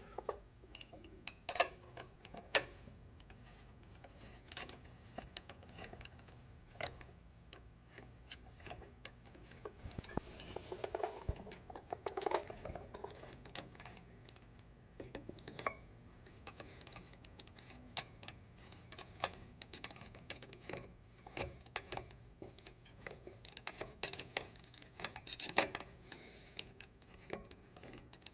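Irregular small metallic clicks, taps and scrapes from hand work on a front brake caliper as its caliper bolts are threaded in by hand, with a longer stretch of scraping about ten seconds in.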